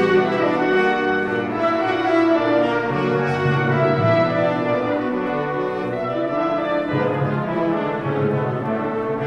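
Orchestra playing an overture live, with the brass section prominent in sustained full chords.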